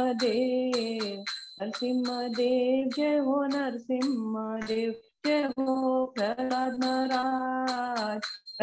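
A woman singing a devotional chant alone, holding long notes in phrases of about a second with short breaks between them. A faint, steady, high-pitched tone runs underneath.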